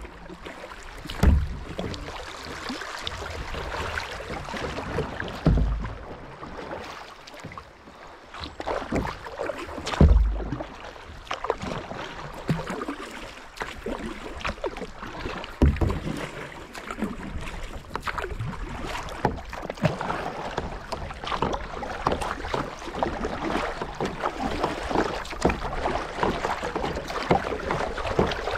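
Water splashing and rushing around a kayak on the river, with many small crackling splashes that grow busier in the second half. A few dull low thumps come every four to five seconds in the first half.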